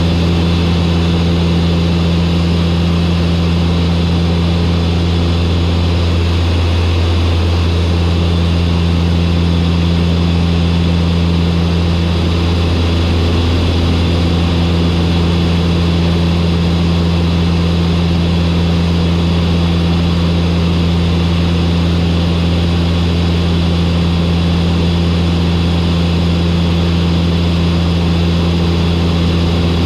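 Turboprop aircraft engines and propellers running steadily on final approach: a loud, constant low hum with several steady tones above it, which waver briefly twice.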